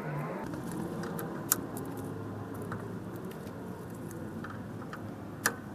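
Metal hand tools and steel parts clinking and rattling during wrench work on a truck's steering linkage, with two sharp metallic clicks, one about a second and a half in and one near the end.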